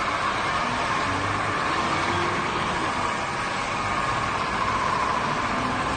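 Cordless Swivel Sweeper G6 electric floor sweeper running steadily, its motor and spinning brushes working over the floor to pick up dirt.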